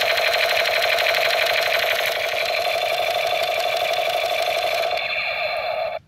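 Battery-powered toy machine gun going off: its built-in speaker plays a fast, steady electronic firing rattle. The sound shifts about five seconds in and then cuts off suddenly.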